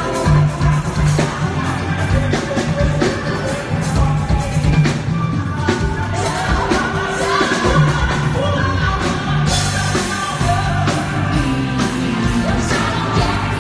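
Live pop band playing, with a woman singing lead into a microphone over a steady beat and bass.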